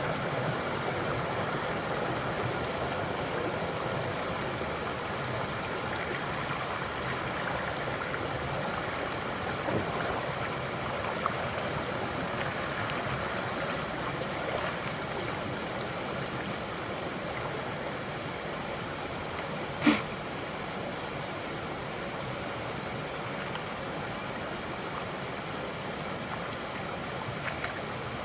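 Creek water running steadily over rocks. A single sharp click or knock stands out about two-thirds of the way through, with a couple of fainter ticks earlier.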